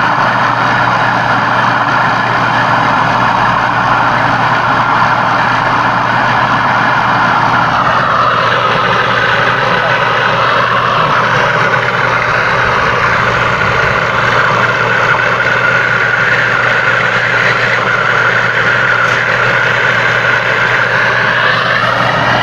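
Gas brazing torch burning with a steady hiss while copper refrigerant tubing is brazed. Its tone drops about 8 seconds in and comes back up near the end.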